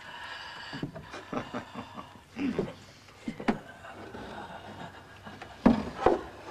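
A man's heavy, gasping breathing as he heaves over a bucket, with small clicks and knocks, and a couple of sharper knocks near the end.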